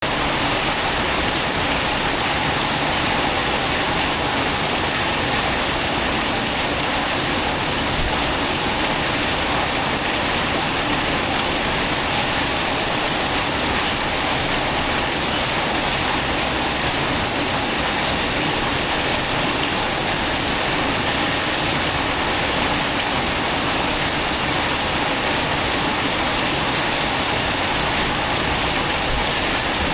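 Heavy rain falling steadily, a dense, even hiss of rain without let-up.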